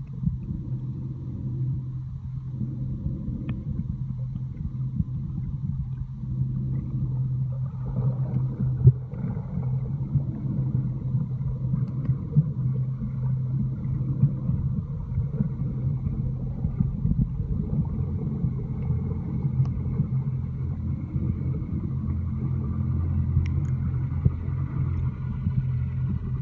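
A motorboat's engine and propeller heard underwater as a steady low hum, with a deeper second tone coming in after several seconds and growing stronger in the second half.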